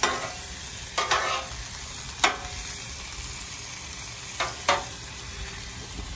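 Metal tongs clacking and scraping on a steel flat-top griddle as green beans are gathered off it: about six sharp strikes. A steady low sizzle from the hot griddle lies under them.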